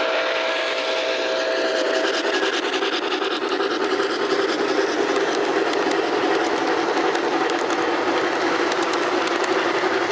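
A model steam locomotive's whistle holds a steady chord that stops about two seconds in. After that the passing train of model passenger cars gives a steady rolling rush with fast clicking of wheels on the track.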